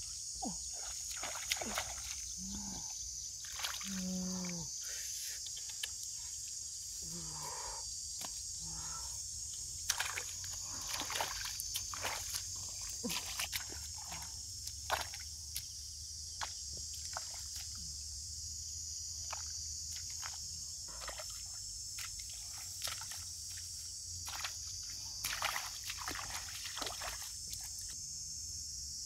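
Irregular splashing and sloshing of feet wading through shallow water and mud in a flooded rice paddy, over a steady high-pitched insect drone.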